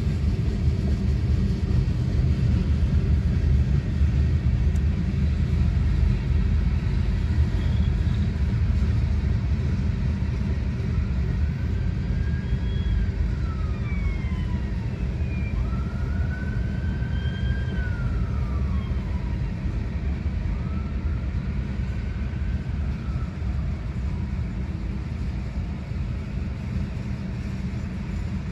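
Freight train cars rolling past with a steady low rumble of steel wheels on rail. Several faint rising-and-falling wails sound over it between about 11 and 21 seconds in.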